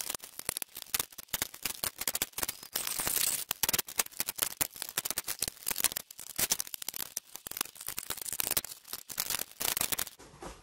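Dense, rapid clicking and rattling of plastic body panels and their fasteners being handled and pulled off a Polaris RZR RS1, cutting off abruptly about ten seconds in.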